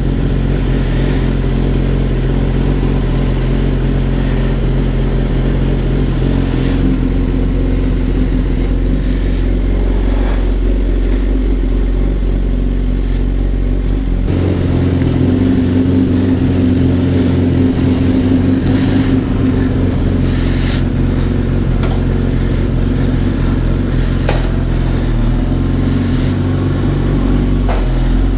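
Kawasaki ZX-10RR's inline-four engine, fitted with an aftermarket exhaust pipe, idling steadily once warmed up. Its tone gets fuller and lower about halfway through.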